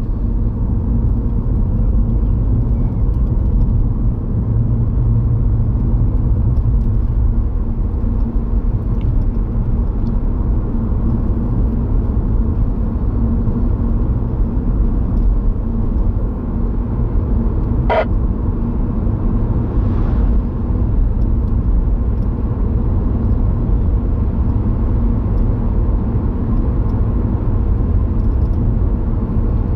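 Car driving, heard from inside the cabin: a steady low rumble of road and engine noise. One short pitched blip about eighteen seconds in.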